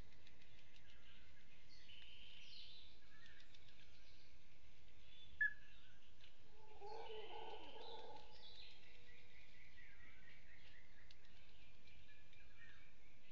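Several forest birds calling and whistling over a steady background hiss. There is one sharp, loud note about five seconds in, and a short lower-pitched call a couple of seconds later.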